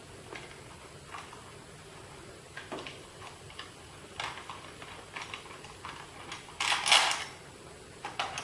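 Scattered light metallic clicks and knocks of an Allen wrench and air-filter hardware being worked by hand, with a louder rattling scrape lasting about half a second near the end.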